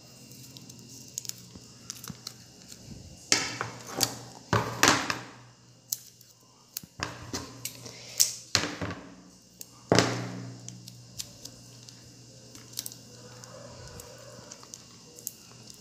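Adhesive tape being pulled off the roll in several short rasping tears, a few seconds in and again around the middle, among sharp clicks and knocks from handling a plastic jar lid and small power adapters.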